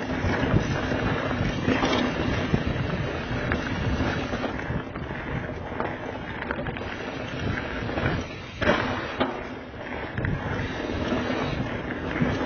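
Diamondback Mission downhill mountain bike rolling fast over a rocky, rooty dirt trail: tyres crunching on dirt and stones, with a constant clatter and rattle of chain and frame over the bumps. A short lull a little after two-thirds of the way ends in a hard knock.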